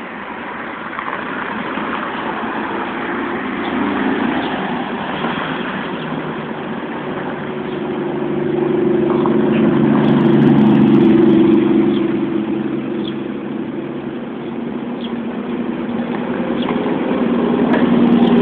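Motor vehicle engine running, its low hum swelling louder about halfway through and again near the end.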